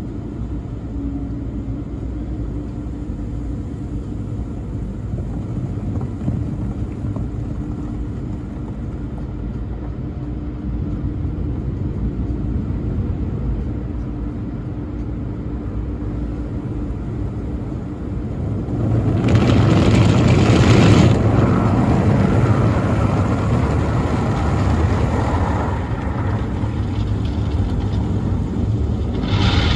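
Automatic tunnel car wash heard from inside the car cabin: a steady low rumble of the wash machinery, then about two-thirds of the way in a much louder rushing of water washing over the windshield for several seconds, and a brief rush again near the end.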